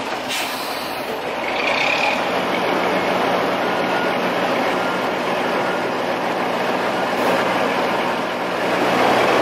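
Crawler crane's diesel engine running steadily, a little louder from about two seconds in.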